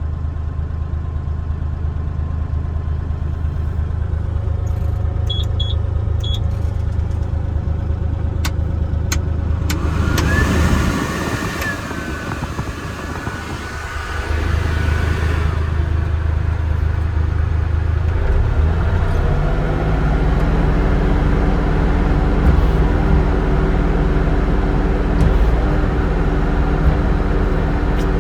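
Bobcat E35 R2 mini excavator's diesel engine running steadily, with a few sharp clicks in the first third. Near the middle comes a rushing hiss with a high steady whine for several seconds, and from about two-thirds of the way in the engine runs louder and fuller.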